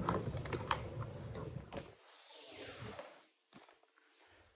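Clicks and rustling of an infant car seat's harness straps and fabric cover being handled and adjusted, dying away to near quiet after about two seconds, with one more small click later.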